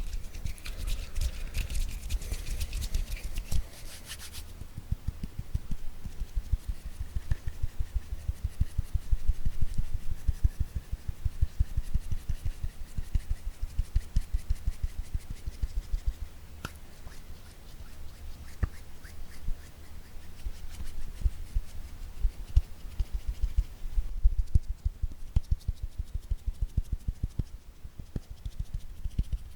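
ASMR hand tapping: rapid, dull fingertip taps in quick runs, with a rubbing, hissing sound over them for the first few seconds.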